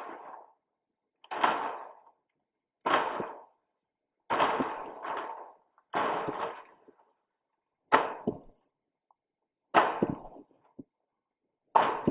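Tape being pulled off a roll in short strips: about eight brief tearing noises, each starting sharply and fading, roughly one and a half seconds apart.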